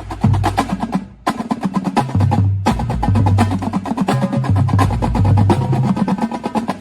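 Drum corps percussion section playing in unison: fast, even drum strokes over low held notes, with two short breaks, about a second in and just past two and a half seconds.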